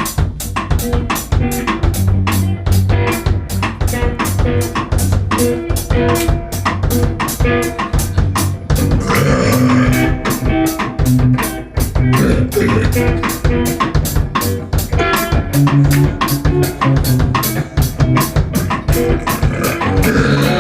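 Band music with a drum kit keeping a steady beat of about four strokes a second, over bass and guitar.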